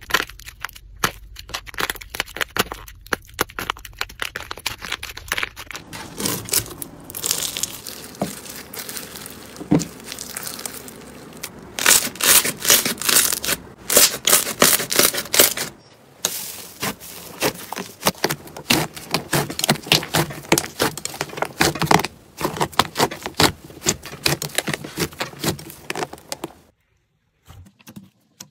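Hands squeezing, tearing and pressing slime, making dense crackling, popping clicks and soft tearing sounds. The crackle is loudest and busiest in the middle, from a green slime full of crunchy beads, and it stops about two seconds before the end.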